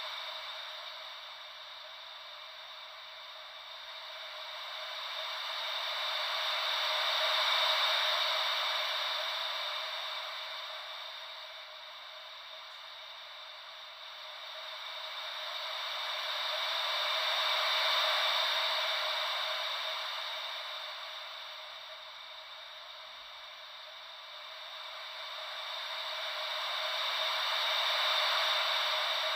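Wave-like white noise: a steady hiss with no deep rumble, swelling and fading slowly and evenly about every ten seconds, three swells in all.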